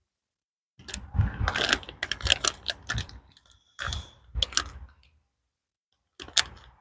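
A plastic bag of moist groundbait crinkling and crunching as it is gripped and squeezed in the hand, in uneven bursts that stop for about a second near the end before starting again.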